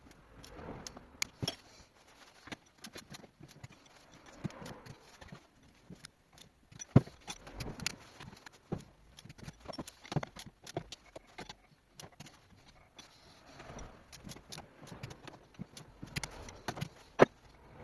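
Irregular clinks and knocks of metal gearbox parts and hand tools being handled during reassembly of a Subaru Impreza manual transmission, with two sharp knocks, one about seven seconds in and one near the end.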